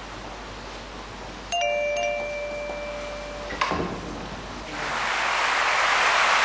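Two-tone electronic ding-dong doorbell chime about one and a half seconds in, ringing out for about two seconds. A sharp click follows, then a hiss that swells towards the end.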